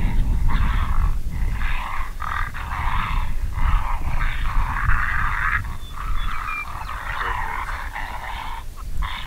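Heavy, breathy panting close to the microphone, in uneven breaths of about half a second to a second, over a steady low wind rumble.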